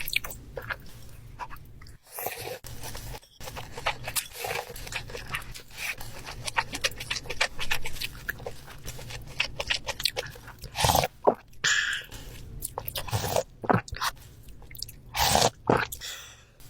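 Close-miked ASMR eating: crisp crunching bites and wet chewing in a steady run of small clicks, with several louder bursts about two-thirds of the way in and near the end.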